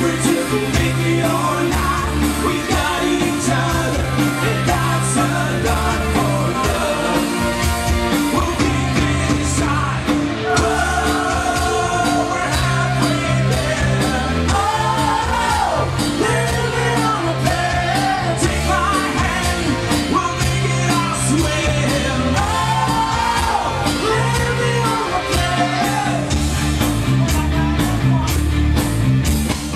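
Rock band playing: electric guitar, bass, keyboards and drums under a steady beat, with male lead vocals carrying the melody, strongest from about ten seconds in.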